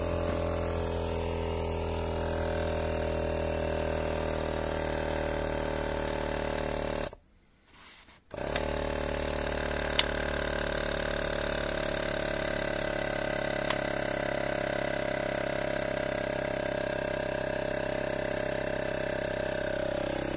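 Portable 12-volt car air compressor running steadily, pressurising the injector-flushing bottle and fuel line to check that the rig holds pressure. It stops for about a second after seven seconds, then runs on with its pitch dropping slightly.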